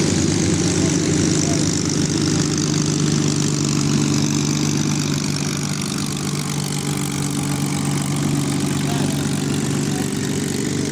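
Spitfires' piston aero engines running steadily at low power as they taxi, a deep even drone with no revving.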